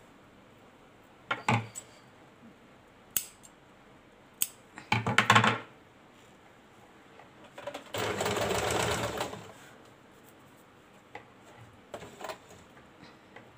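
Domestic electric sewing machine stitching gota lace onto a sleeve: a few short bursts and clicks in the first half, the loudest about five seconds in, then one steady run of stitching about a second and a half long a little past the middle, with faint clicks near the end.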